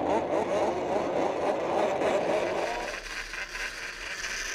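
Several racing snowmobile engines running together, a dense, wavering engine sound that drops noticeably in level about three seconds in.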